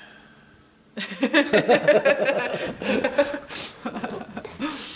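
People laughing, starting about a second in after a brief quiet moment and going on to the end.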